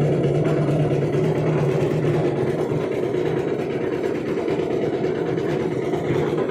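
Baromix Commodore 4/3 cement mixer running, its engine keeping a steady hum.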